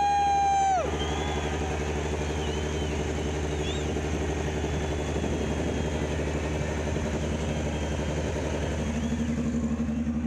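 Moto2 race bike's Triumph 765 three-cylinder engine idling steadily. A horn blast ends about a second in.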